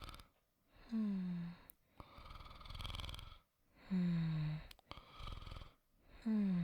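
A person snoring softly in a slow, even rhythm. Each breath cycle is a short snore that drops in pitch, followed by a longer breathy part, and it repeats about every three seconds: three snores in all.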